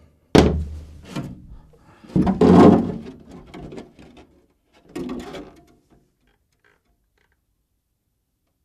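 Clear plastic RC truck body shell being handled and flexed: a sharp knock about a third of a second in, then two spells of plastic rustling and handling noise, the louder one around two seconds in and a shorter one around five seconds.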